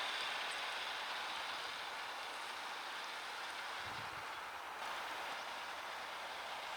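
John Deere 6195R tractor working with its plough, heard from a distance as a steady rushing noise that slowly fades a little, with a faint low thud about four seconds in.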